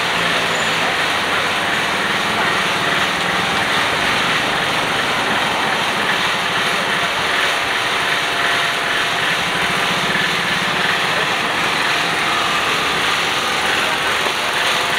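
Small generator running steadily, a constant engine noise that does not change.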